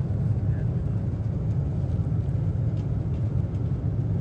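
Steady low rumble of an airliner cabin in flight: engine and airflow noise, even throughout.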